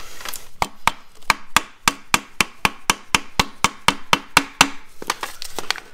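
Hammer tapping a flat screwdriver in quick, even taps, about four a second, with a short pause near the end and a few more taps. The taps drive the screwdriver tip under the lip of the metal cap on an adaptive shock absorber's end so the cap can be pried off.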